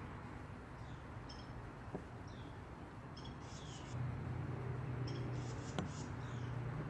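Faint, repeated chirps of small birds, with a low steady hum coming in about four seconds in and a couple of light clicks.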